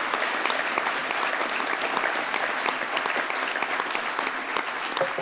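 A large conference audience applauding, many hands clapping in a dense, steady wash.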